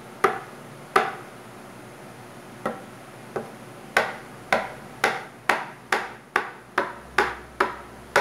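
Spatula chopping a rope of cassava gnocchi dough on a stone countertop: sharp knocks of the blade striking the stone with each cut, a few spaced out at first, then steady at about two a second from about four seconds in.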